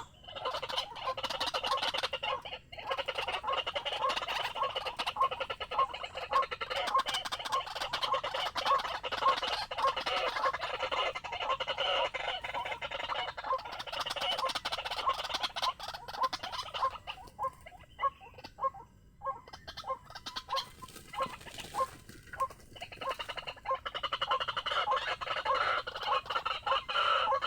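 White-breasted waterhen calling: a long, continuous run of harsh repeated notes, about two a second, that thins out briefly about two-thirds of the way through and then picks up again.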